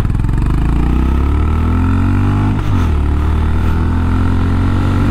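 Honda H'ness CB350's 348 cc air-cooled single-cylinder engine accelerating on the road, its exhaust note rising in pitch. The pitch falls sharply once about two and a half seconds in, then climbs again.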